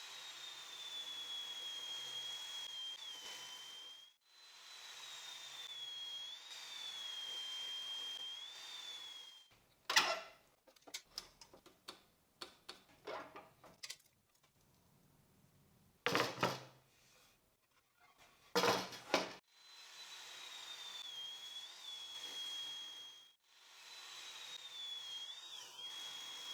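Bosch GTS254 table saw ripping the edges of pine boards in four passes of about four seconds each. The blade's high whine sags in pitch as the wood loads it, then recovers. Between the second and third passes come a string of sharp knocks and clacks as the boards are handled and set against the fence.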